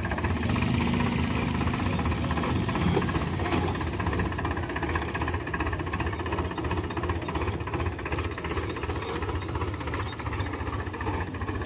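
Powertrac Euro 50 tractor's three-cylinder diesel engine running steadily under load, with a rapid, even diesel clatter, as it pulls a Sonalika rotavator tilling dry soil.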